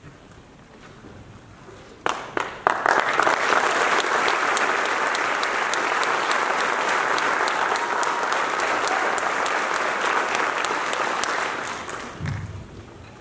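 Audience applauding: a few scattered claps about two seconds in, swelling quickly into steady applause that fades out near the end.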